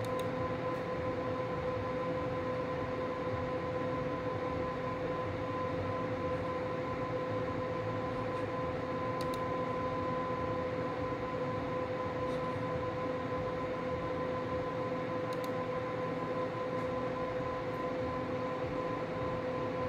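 Steady whirring hum of a running desktop computer's cooling fans, with a steady mid-pitched tone and a fainter one an octave above it, and a few faint clicks. The newly fitted graphics-card fans, set to 100%, are not spinning.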